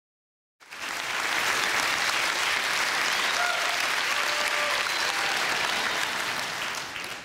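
Audience applauding, starting abruptly out of silence about half a second in and dying down near the end.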